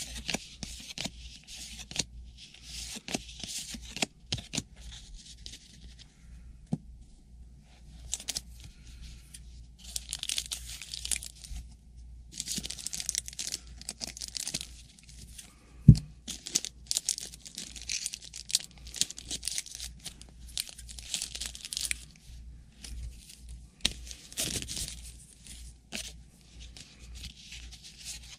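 Trading card packs being torn open and the cards handled: repeated bursts of tearing and crinkling wrapper with scattered light clicks, and one sharp knock about halfway through.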